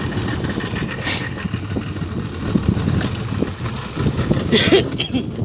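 Boat engine running steadily with a low rumble, with two short bursts of hiss, one about a second in and a longer one near the end.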